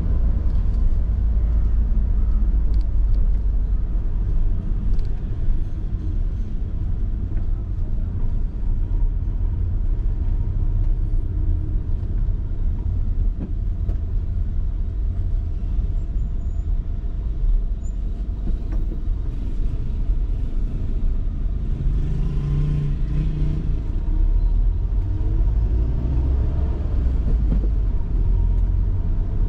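Car driving slowly in city traffic, heard from inside the cabin: a steady low rumble of engine and road noise. A brief low tone stands out about three-quarters of the way through.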